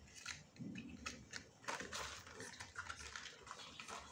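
Faint rustling and irregular clicking of cardboard firecracker packets being handled and shuffled in a cardboard box.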